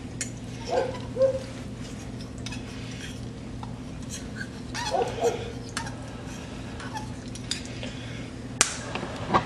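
Metal fork and spoon clinking and scraping against a glass baking dish as spaghetti is twirled, with scattered sharp clicks over a steady low hum. Two short pitched vocal sounds stand out, about a second in and again around the middle.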